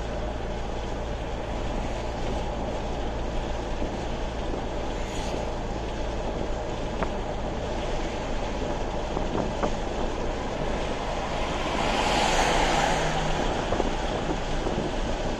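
Road noise inside a car driving at highway speed: a steady engine and tyre rumble. About twelve seconds in, a louder swell of noise rises and fades.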